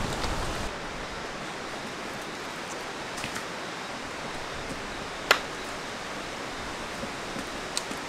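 Steady rush of a shallow mountain stream running over stones, with a sharp click about five seconds in and a few fainter ticks.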